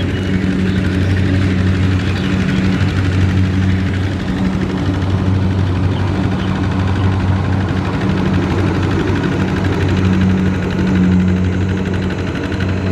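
Single-cylinder diesel engine of a Kubota two-wheel walking tractor running steadily under load, pulling a trailer with two riders through wet paddy mud.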